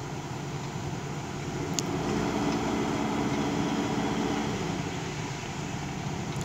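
Volvo crawler excavator's diesel engine running steadily, its note shifting slightly a couple of times, with one sharp click about two seconds in.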